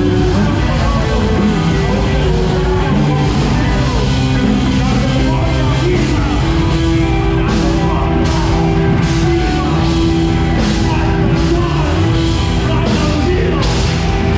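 Loud rock music with a steady, dense band sound, a voice singing over it and a few sharp cymbal-like strikes.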